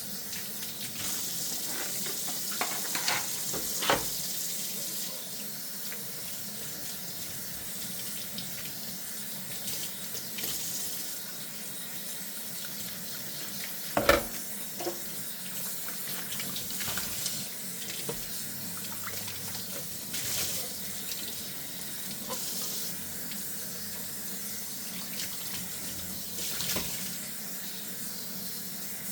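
Tap water running into a kitchen sink while dishes are washed by hand, with a few knocks and clinks of dishware; the loudest knock comes about halfway through.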